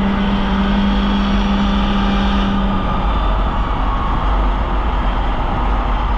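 Polaris Indy snowmobile engine running under throttle with a steady pitch, easing off about two and a half seconds in, with wind rumbling over the microphone.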